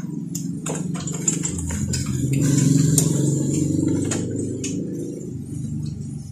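A motor engine rumbling, swelling to its loudest about three seconds in and then fading away, with scattered light metallic clicks from small hardware being fitted by hand.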